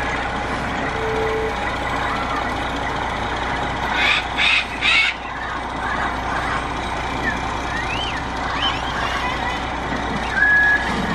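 Cockatiels calling: three short sharp chirps about four seconds in, then a few rising-and-falling whistles, over steady background noise. A truck's reversing alarm starts beeping again near the end, an even run of short high beeps.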